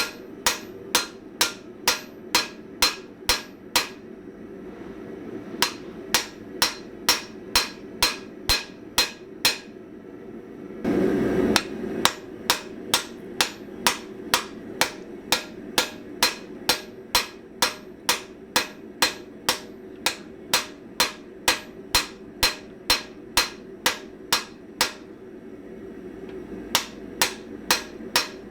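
Hand hammer forging hot spring steel on an anvil in a steady rhythm of about two and a half blows a second, each blow ringing bright, with short pauses about four seconds in and near the end. About eleven seconds in, a rushing noise of about a second breaks the rhythm, and a steady low hum runs underneath.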